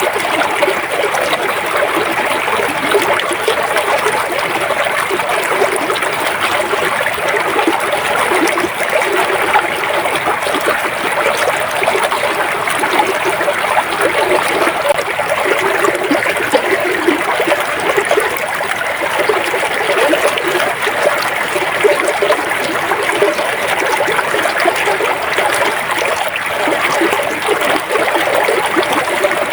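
River water flowing steadily, a continuous rush of moving water with small gurgles and splashes.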